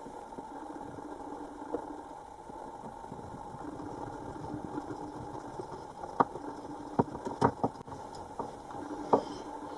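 A steady mechanical hum like a motor running, with several sharp knocks and clicks from about six seconds in as the cabinet light rail is fitted.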